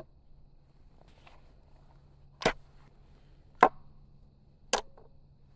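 Beretta 81BB pistol: three sharp, short snaps a little over a second apart, the middle one the loudest.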